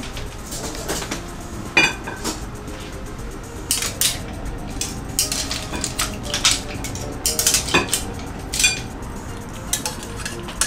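Metal tongs clinking and scraping against a frying pan, hard clam shells and a ceramic plate as pasta and hamaguri clams are served out: a string of sharp, irregular clinks, bunched in quick groups.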